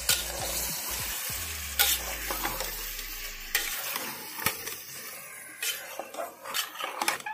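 Raw chicken pieces sizzling in hot oil with fried onions in an aluminium pressure cooker, stirred with a steel spatula that scrapes and knocks against the pot several times, more often near the end.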